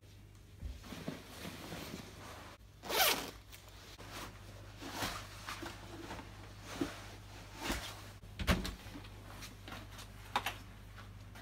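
Someone getting dressed to go out: a jacket zip pulled, loudest about three seconds in, with clothing rustling and a few short knocks as shoes are pulled on with a shoehorn. A sharp click near the end as the door is opened.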